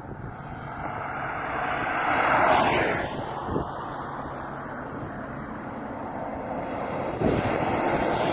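A motor vehicle passing by over a steady outdoor rumble; it is loudest about two and a half seconds in, with a falling pitch as it goes by.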